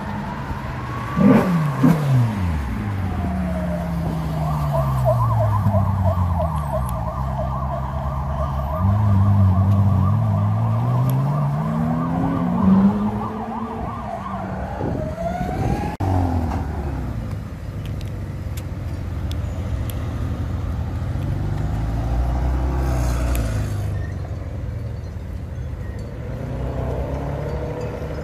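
Supercar engine accelerating and revving, its pitch climbing and dropping with the gear changes, with a few sharp cracks about a second or two in. Over it an emergency-vehicle siren wails, then warbles quickly for about ten seconds; later the traffic settles to a steadier running.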